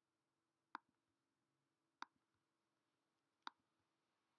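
Computer mouse button clicking four times, a second or so apart, each a short sharp click over near-silent room tone.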